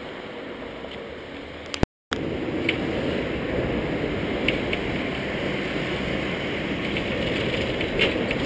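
A Hong Kong double-decker tram running along its tracks, heard from on board: a steady rumble and rattle of wheels on rails with a few sharp clicks. The sound drops out for a moment about two seconds in and comes back louder.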